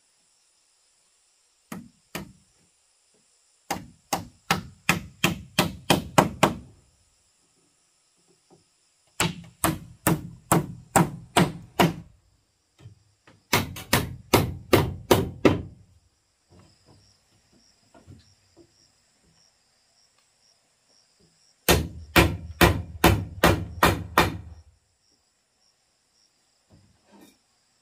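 Hammer blows on wood, as when nailing boards: a few light taps, then four runs of quick, even strikes, about three a second, each run growing louder. A steady high insect drone runs behind.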